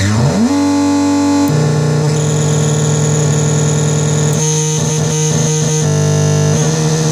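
Dirty Drone [anarchy edition] synth, three interacting triangle-wave oscillators, playing a buzzing drone. A short rising sweep settles into a steady tone, which drops to a lower, denser drone about a second and a half in. Between about four and a half and six seconds the drone breaks into a rapid stuttering pulse.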